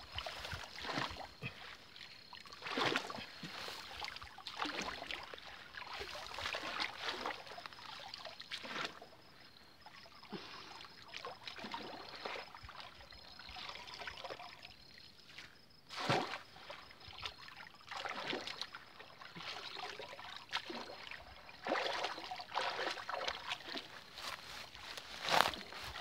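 Water sloshing, splashing and trickling as a round fishing sieve is dipped into a shallow stream and lifted out, draining through its mesh, with feet wading in the water. Two sharper splashes stand out, one midway and one near the end.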